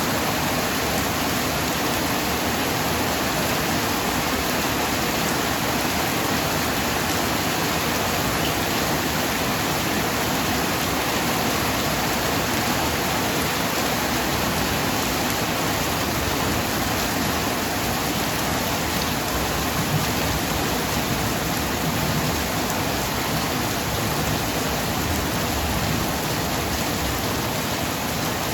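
Heavy rain falling steadily, a dense unbroken hiss of downpour.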